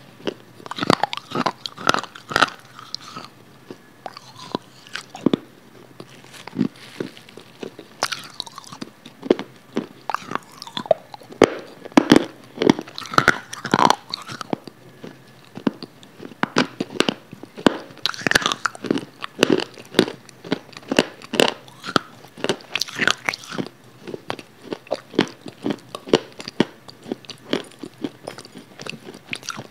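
A person chewing and eating, with many short, irregular mouth clicks and smacks; they thin out for a moment around five seconds in and again near the end.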